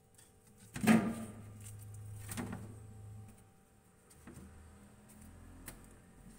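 Kitchen handling sounds: a loud knock about a second in, a second knock a second and a half later, then a few lighter clicks.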